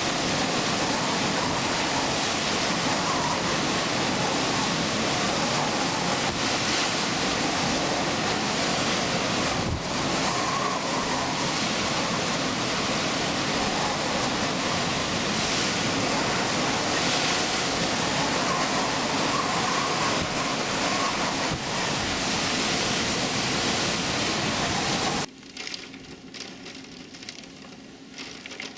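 Hurricane-force wind blowing hard with rain: a loud, steady rush with wind noise on the microphone. About 25 seconds in it cuts off abruptly to a much quieter patter of rain.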